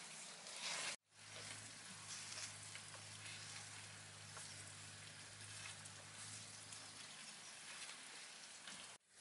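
Soft scraping of a bamboo pole drawn across sand to level it, over a faint steady hiss with small scattered ticks. It is louder for the first second, and the sound cuts out sharply about a second in and again near the end.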